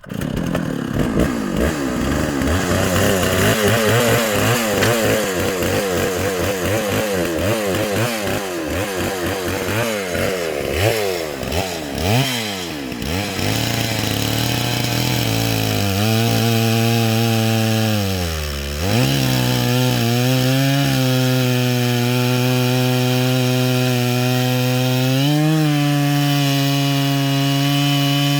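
Stihl MS 660 chainsaw with a 36-inch bar and ripping chain, running on an Alaskan mill and ripping through a Western red cedar log. Its revs waver up and down for the first dozen seconds, then settle into a steady pitch under load, dipping briefly about two-thirds of the way in before recovering.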